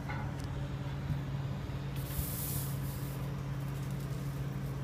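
Hot soldering iron sizzling briefly on fluxed copper sheet about two seconds in, over a steady low hum.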